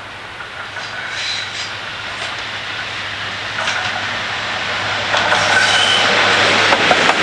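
A Class 55 Deltic diesel locomotive hauling coaches approaches and passes, its twin Napier Deltic two-stroke engines growing steadily louder as it nears. In the last couple of seconds its wheels click over the rail joints, with brief high wheel squeals.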